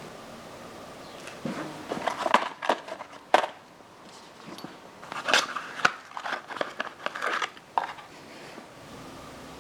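Irregular light clicks, knocks and crinkling as parts are handled on a workbench, in short clusters over several seconds.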